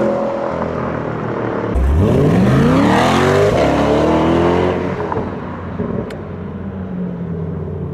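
C8 Corvette's 6.2-litre V8 accelerating hard away from standstill: about two seconds in the revs climb steeply, then drop back, and the engine runs on quieter as the car moves off.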